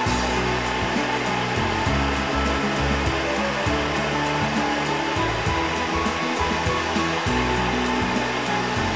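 Steady rushing roar of a Lopet propane lampworking burner flame, with background music.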